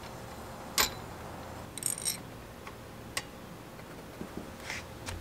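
Scattered metal clicks and clinks from a bicycle headset press being fitted through a head tube, its cups, washers and threaded rod handled by hand. A sharp click just under a second in is the loudest, with a small cluster of clinks near two seconds and lighter ticks after.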